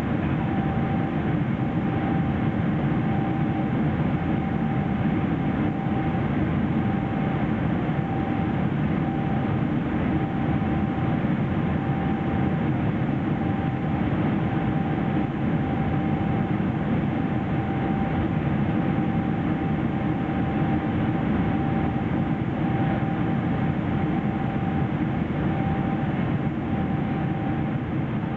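Steady cabin noise of a Boeing 777-300ER at cruise altitude: the even rush of airflow and its GE90-115B turbofan engines, with a thin steady whine above it.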